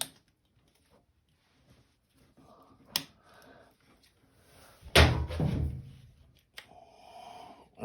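A sharp click about three seconds in, then a louder heavy thunk about five seconds in that rings on briefly, and another small click: parts being handled and knocked against the washer's direct-drive motor during a sensor replacement.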